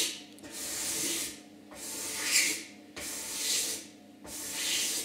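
A hand-held blade shaving padouk wood in repeated strokes, about one a second: each a scraping sound that swells and then stops.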